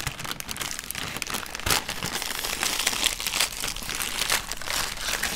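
Foil wrappers crinkling and rustling as a gold foil bag of Ferrero Moments chocolates is torn open and handled: a dense, irregular crackle.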